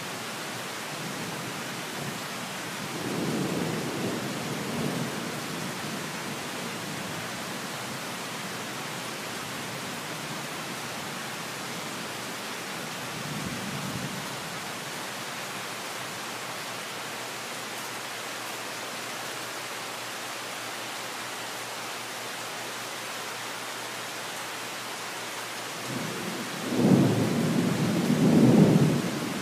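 Steady rain with thunder rumbling: two short rumbles in the first half, and a louder one lasting about three seconds near the end.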